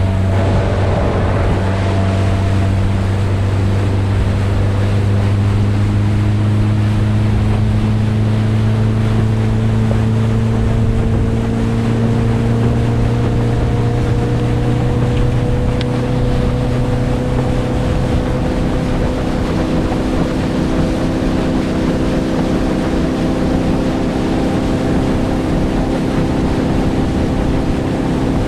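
Motorboat engine running steadily underway, its note slowly climbing, with wind and water rushing past.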